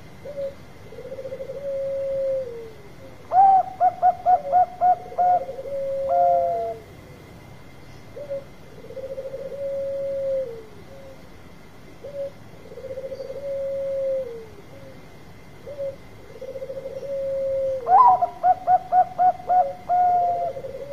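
Bangkok zebra dove (perkutut) singing: lower, drawn-out coos that fall away at the end repeat every few seconds. Twice, about three seconds in and again near the end, comes a rapid run of about seven short, louder coos closed by a longer note.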